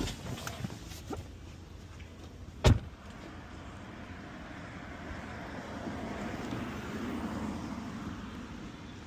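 A single loud thump about three seconds in, then steady traffic noise that swells and eases.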